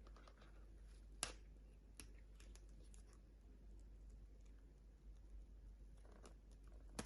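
Quiet handling of the iPhone and its packaging: scattered light clicks and taps over near silence, with one sharp click about a second in and another at the very end.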